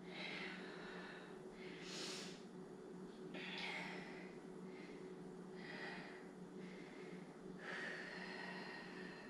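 A woman breathing hard under exertion during a set of resistance-band bicep curls: about five forceful breaths, roughly two seconds apart, over a faint steady hum.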